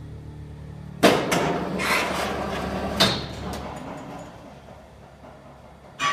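Loud metal clatter and grinding as a crane takes up a heavy load on its hook, chain and crane scale, with a second hard knock about three seconds in. A sharp, ringing metal clang comes near the end, over a steady low hum that fades out partway through.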